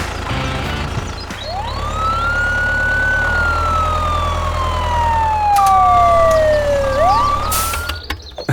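Siren that rises quickly in pitch, falls slowly over about four seconds, then starts rising again near the end, over a steady low hum.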